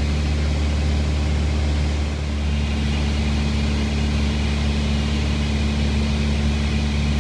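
Steady engine and propeller drone of a light propeller airplane in cruise, heard in the cockpit. One of its tones strengthens a little after two seconds in.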